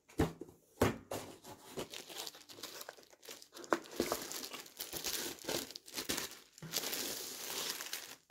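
Clear plastic shrink wrap crinkling and tearing as it is handled and pulled off a box, in irregular crackles with a few sharp snaps.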